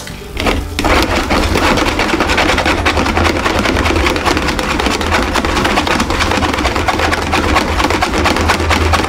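Spiral coil whisk beating thin martabak batter in a metal pan: a fast, steady rattling scrape of wire against the pan, starting about a second in.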